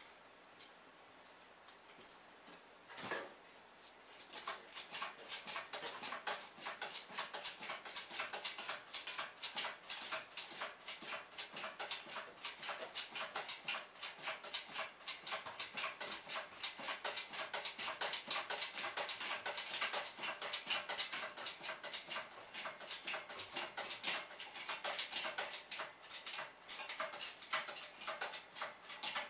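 Hydraulic engine hoist (cherry picker) lifting a car engine out of its bay on a chain: a single knock about three seconds in, then a fast, continuous run of small clicks and creaks from about four seconds in as the engine rises.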